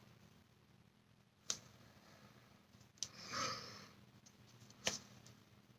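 Quiet room with three faint small clicks, spaced about a second and a half apart, from makeup items being handled, and a short soft breathy noise just after the middle click.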